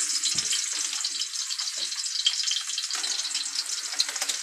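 Food frying in a pan: a steady sizzle full of fine crackles.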